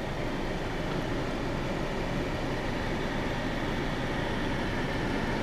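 Volkswagen Golf 1.6's engine idling, a steady hum heard from inside the cabin.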